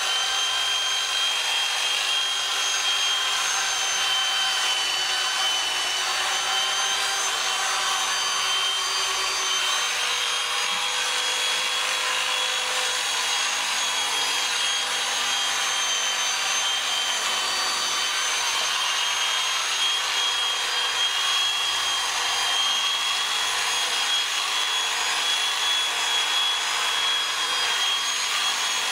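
Electric sheep-shearing handpiece running steadily with a high whine as it cuts the wool from a sheep's brisket and belly.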